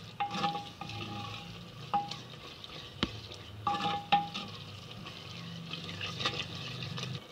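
Spoon stirring and scraping onions, garlic, ginger and spices frying in oil inside an unglazed clay pot, knocking against the pot's wall several times, some knocks with a short ring. This is the bhunai stage, frying the masala in oil until the oil separates.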